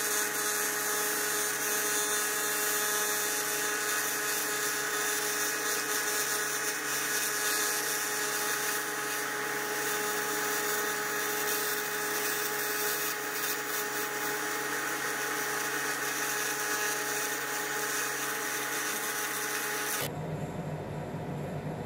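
TIG welding arc on an aluminium cylinder head, a steady buzz and hiss as filler is laid in to build up a worn-through spot. About twenty seconds in it cuts off abruptly, leaving a lower rumble.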